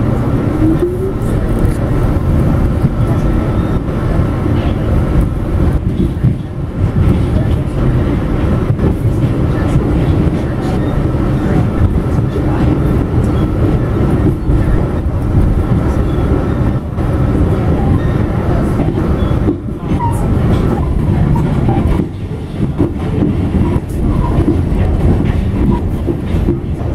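R46 subway car heard from inside, pulling out of a station and running through the tunnel: a steady loud rumble of steel wheels on rail. The traction motors whine, rising in pitch in the first second or so as the train picks up speed, with scattered clicks of the wheels over rail joints.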